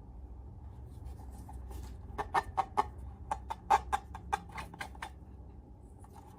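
Slime being worked by hand, giving a quick, irregular run of about a dozen short, sharp wet clicks and pops that lasts about three seconds.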